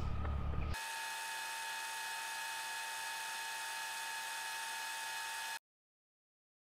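A low motorcycle rumble stops under a second in, leaving a steady electronic hiss with a thin high whine from the recording chain. The hiss cuts off suddenly to dead silence near the end.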